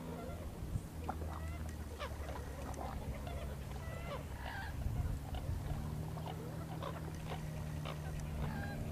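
Birds calling in many short chirps over a steady low hum.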